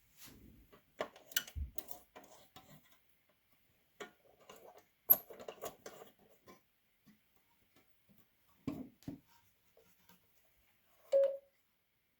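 Irregular light clicks and small knocks of a NATO Morse key being handled and worked, with a sharper click about five seconds in. Near the end comes one short, clear beep.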